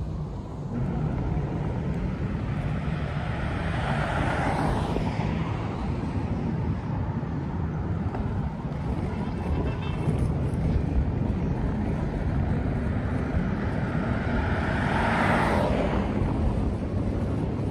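Cars passing on a road close by, two of them swelling up and fading away, over a steady low rumble of outdoor traffic noise.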